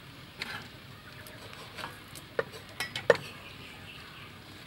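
Cleavers chopping raw beef on wooden chopping blocks: irregular knocks, about six over a few seconds, the loudest about three seconds in.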